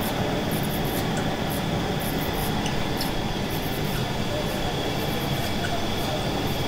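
Wide-width flexographic printing press running steadily as the printed web travels over its rollers: a continuous mechanical rumble with a thin, high steady whine and scattered light ticks.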